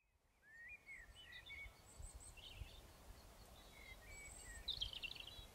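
Faint birdsong: small birds chirping and warbling in short rising and falling calls, a little louder near the end, over a faint low background rumble.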